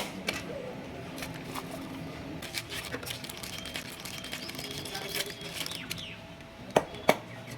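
Faint background voices with thin chirps, then two sharp knocks in quick succession near the end.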